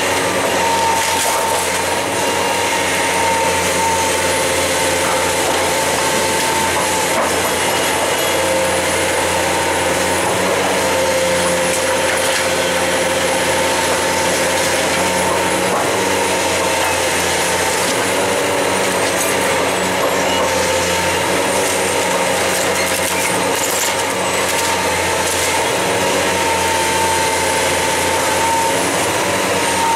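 John Deere 470G demolition excavator's diesel engine and hydraulics running steadily under load, with a wavering high whine, and a few short knocks and crashes of brick rubble scattered through.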